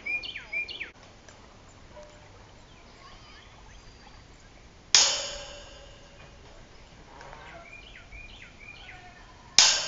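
Bolt cutters snapping through the steel wire of a cattle panel twice, about five seconds in and again near the end, each cut a sharp snap followed by the wire panel ringing. Birds chirp between the cuts.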